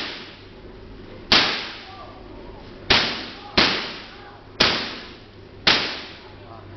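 Large air-insulated Van de Graaff generator firing lightning-like sparks: five sharp cracks at uneven intervals, each echoing away in a large hall over about a second, over a steady low hum.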